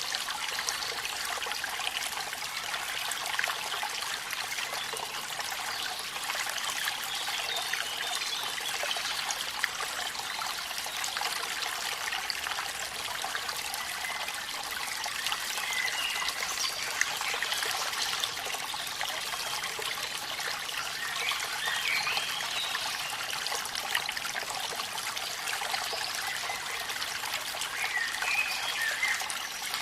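Waterfall water trickling and splashing steadily over rocks, an even rushing noise with no low rumble. A few faint short chirps come through about halfway in and near the end.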